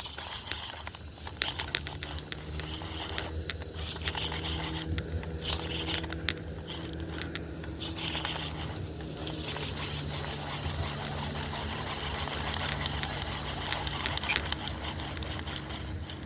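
Fishing reel being cranked to wind the line back in, a steady mechanical whir with small clicks and rattles.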